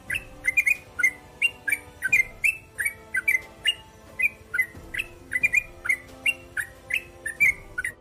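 Yellow-vented bulbul (trucukan) singing: a fast, unbroken run of short chirping notes, about three or four a second.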